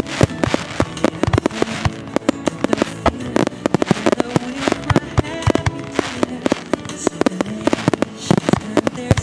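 A star mine barrage of aerial firework shells bursting in rapid, irregular volleys, several sharp bangs a second, over music.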